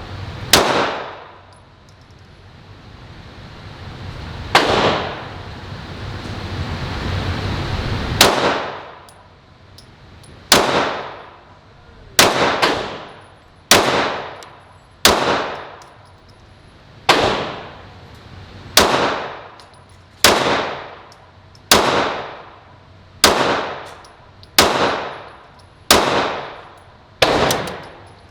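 Pistol shots in an indoor range, each a sharp crack with an echoing tail. A few widely spaced shots come first, then from about ten seconds in a steady string of about a dozen, roughly one and a half seconds apart.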